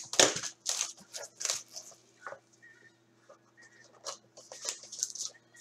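A sealed box of trading cards being torn open: the wrapping tears and crinkles in short crisp bursts, several in the first two seconds, then again near the end after a quieter pause.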